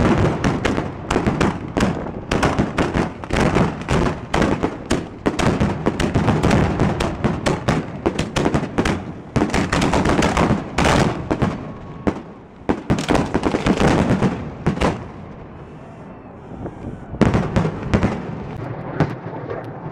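Fireworks finale: 3-inch aerial shells fired from mortar tubes in a rapid, dense barrage of launches and bursts. It thins out about fifteen seconds in, with a last few bangs near the end.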